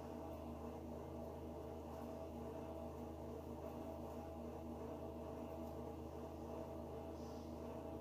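A steady low machine hum made of several held tones, unchanging in level.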